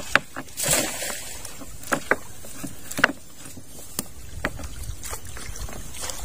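Wet fishing net being hauled in and handled by hand, with water splashing off the mesh and scattered sharp knocks and clicks. A brief hissing splash comes just under a second in.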